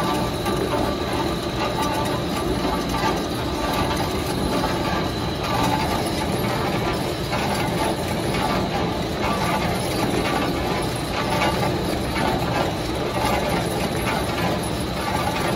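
TAB Wrapper Tornado 40-inch orbital stretch wrapper running, winding clear stretch film around a long package as the conveyor carries it through the ring. A steady mechanical running noise with a faint, steady high whine.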